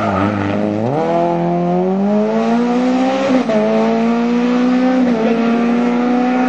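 Rally car engine held low as the car comes through a bend, then accelerating hard away from about a second in. Its pitch climbs steadily, broken briefly by upshifts at about three and five seconds in.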